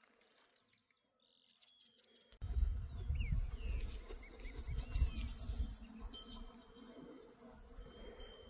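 Near silence for about two seconds, then wind rumbling on the microphone, uneven and low, with several short high bird chirps over it.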